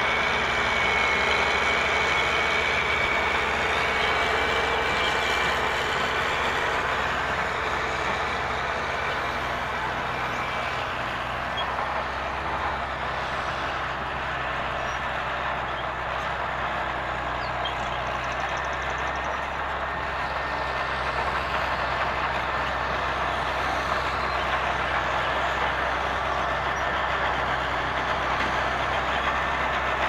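Remote-control toy excavator working its arm and bucket in soil: a steady mechanical whirring from its motors and gears, with a faint high whine that fades out after about ten seconds.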